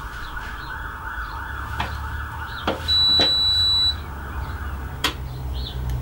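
Front-loading washing machine's electronic beep: one steady high-pitched tone lasting about a second, about three seconds in, as the wash programme starts. A few sharp clicks come before and after it.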